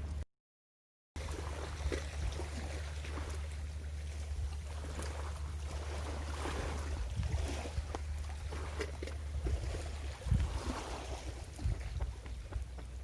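Ocean surf and wind rumbling on the microphone, with scattered small clicks and taps. The sound cuts out completely for just under a second near the start.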